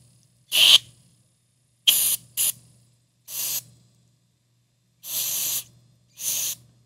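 Aerosol can of carb cleaner sprayed in six short hissing bursts, each under a second, into a corroded pressure washer pressure-regulator plunger bore to clean out rust and corrosion.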